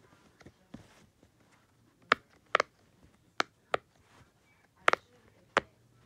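Puzzle-piece-shaped silicone pop-it fidget toy having its bubbles pressed through: about six sharp, separate pops spaced unevenly over the last four seconds, with a few faint ticks before them.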